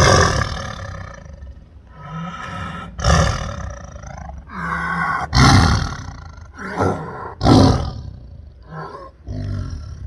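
Tiger roaring in a series of loud, rough calls about two seconds apart, with strained in-breaths between them as it draws air in to roar.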